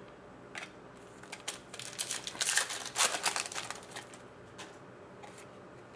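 Trading cards being handled and flicked through by hand: a quick run of light clicks and rustles for about two seconds in the middle, with a few single clicks before and after.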